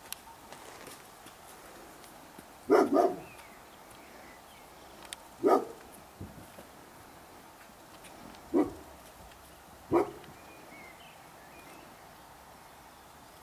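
Roe deer barking in alarm: five short, loud barks, a quick pair about three seconds in, then single barks a few seconds apart.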